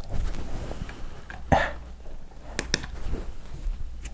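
Quiet handling noise from a hand working over a folding knife held in a nylon strap on a wooden board, with one short sharp knock about one and a half seconds in and two light clicks a second later.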